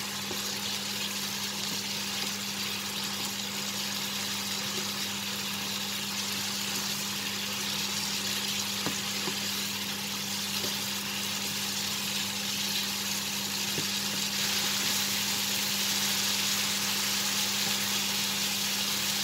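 Smoked bacon, asparagus and carrot sizzling in a hot frying pan while being stir-fried with a wooden spatula, with a few faint scrapes of the spatula against the pan. The sizzle grows a little louder near the end, over a steady low hum.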